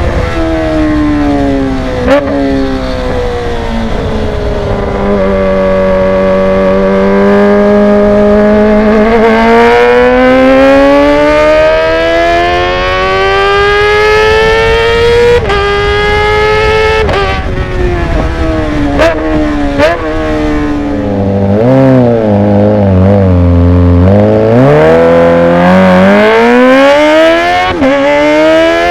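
Kawasaki ZX-25R's 250 cc inline-four engine running loud through a Villan Z1 underbelly exhaust, its pitch climbing steadily over several seconds, dropping suddenly a few times, dipping low and then rising again.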